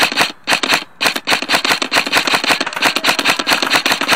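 Rapid, continuous clicking, about ten sharp clicks a second with a brief break about a second in: airsoft guns firing on full auto.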